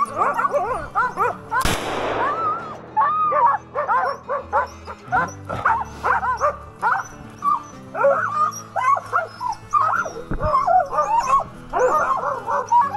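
A pack of hunting laikas barking and yelping in a chorus as they hold a bear at bay, with a single rifle shot about two seconds in.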